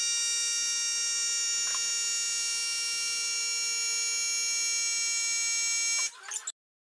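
Steady high-pitched buzzing tone, unchanging, which cuts off suddenly about six seconds in.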